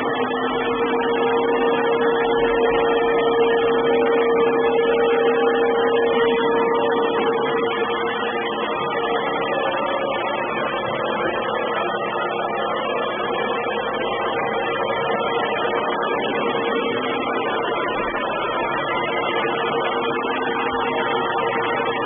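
Samsung robot vacuum cleaner running, a steady motor-and-fan hum with a constant whining tone, a little louder in the first third. The sound is heavily distorted by the camera's microphone.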